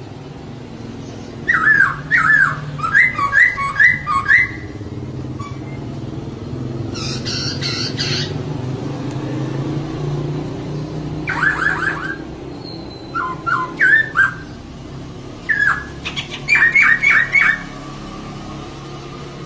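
Female poksay (laughingthrush) calling in about five short bursts of quick, repeated hooked notes, over a steady low background hum.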